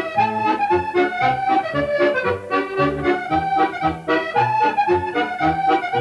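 Accordion playing a lively traditional tune: a melody over a steady bass, with about two bass notes a second.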